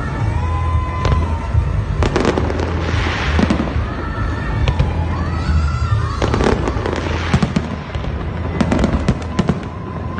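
Fireworks display: repeated sharp bangs and crackling bursts throughout, with music playing underneath.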